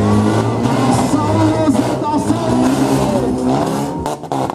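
Engines of several demolition-derby cars running and revving at once, their pitch rising and falling. A short dip near the end.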